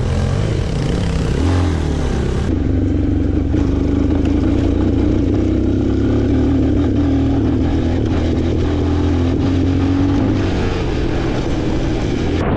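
Motorcycle engine running at speed under the rider. Its pitch rises and falls over the first couple of seconds, then holds steady.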